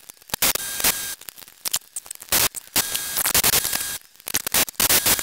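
Hand tools clicking and clanking against a transmission case and its brackets as parts are taken off, in irregular sharp clicks with short stretches of steady hiss between them.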